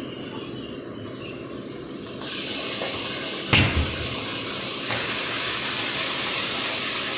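Marinated chicken going into hot butter in a kadai: a loud, steady sizzle starts suddenly about two seconds in, with a couple of knocks in the pan as the meat goes in.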